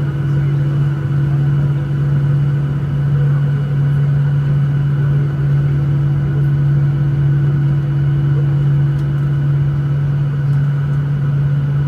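Boeing 737-900ER cabin noise during taxi: the CFM56-7B engines running at idle with air-conditioning hiss, a steady deep hum with a few fixed higher tones.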